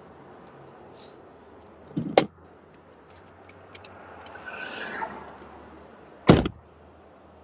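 Two loud car-door thumps, one about two seconds in and another about six seconds in, with low steady car background noise between them.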